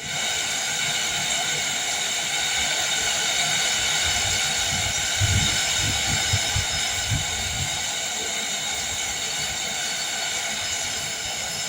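Heavy rain falling with wind, a steady dense hiss. About five seconds in, a low, uneven rumbling comes through for a couple of seconds.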